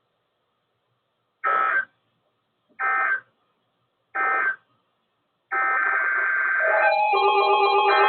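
Three short electronic data bursts of the Emergency Alert System end-of-message signal, about a second and a half apart, which close out the alert. About five and a half seconds in, steady electronic music starts.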